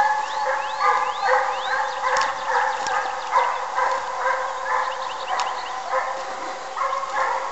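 Russian hounds baying on a hare's trail in full chase: a steady run of ringing bays, about two a second.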